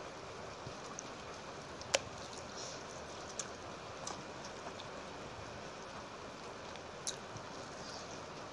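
Wet squishing of a hand mixing panta bhat, rice soaked in water, in a steel plate. A few short sharp clicks come through, the loudest about two seconds in, over a steady hiss.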